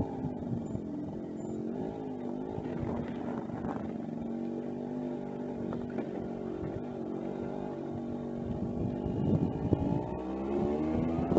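Suzuki Address scooter engine running on the road with lightened 9-gram variator rollers. Its pitch falls as it slows early on, holds fairly steady, then rises again as it speeds up near the end, with a few bumps along the way.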